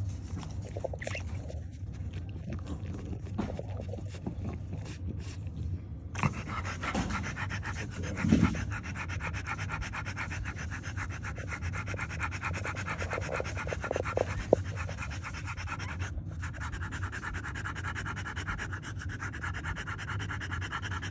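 Newborn French Bulldog puppy suckling at its mother's teat: rapid wet sucking and smacking, with a brief louder sound about eight seconds in and a steady low hum underneath.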